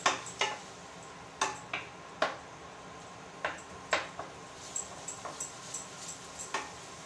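A cooking spoon stirring in a pan, scraping and knocking against its sides in irregular clinks while tomatoes and ginger-garlic paste fry in oil.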